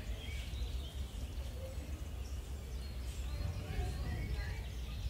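Indoor public ambience: a steady low rumble under faint, distant murmuring voices and scattered high chirps.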